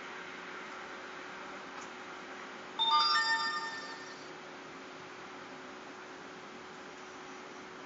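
Short electronic chime, a quick run of a few rising notes that rings out for about a second, over a steady low hum.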